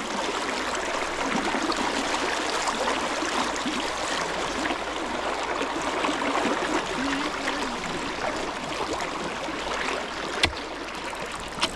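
Fast river current rushing and gurgling close by, steady throughout, with two short sharp clicks near the end.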